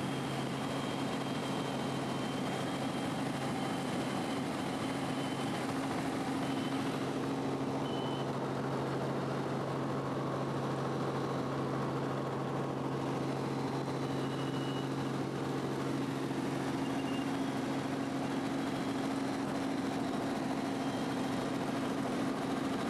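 Robinson R44 helicopter in steady flight, heard from inside the cabin: a constant drone of the piston engine and rotors with a low hum.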